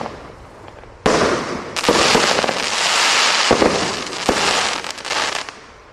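Consumer fireworks going off: a sudden loud report about a second in, then a dense run of overlapping bursts with sharper bangs scattered through, dying away near the end.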